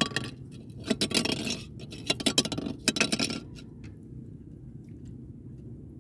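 Scraping and clicking handling noise on a small fishing boat: a sharp click, then two bursts of scraping clatter within the first three and a half seconds, then only a low background hum.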